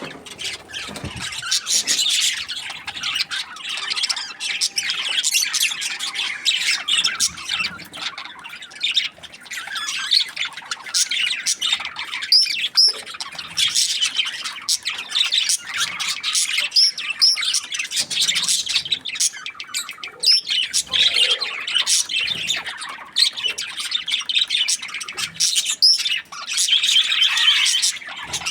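Budgerigars chirping and squawking in a continuous stream of rapid chatter, with short sharp calls and clicks throughout.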